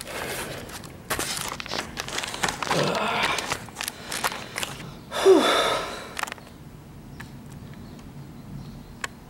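Camera handling noise: fingers rubbing and knocking against the camera body and microphone, with a short sound falling in pitch about five seconds in, then quieter after about six seconds with a few faint clicks.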